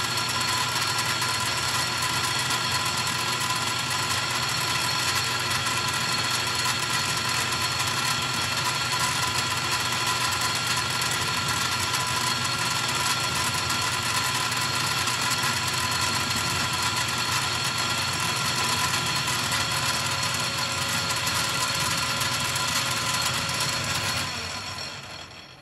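Metal lathe running steadily with an even, multi-tone whine during a light first cut of about five thousandths on a chainsaw cylinder; near the end it is switched off and spins down.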